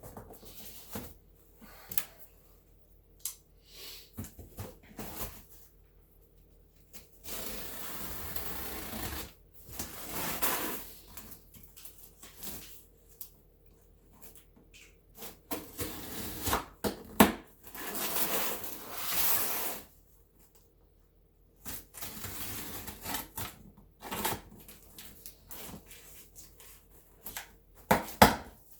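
Hands unpacking a box: irregular taps and clicks of items being handled, with several stretches of rustling packaging lasting a second or more and one sharp click about halfway through.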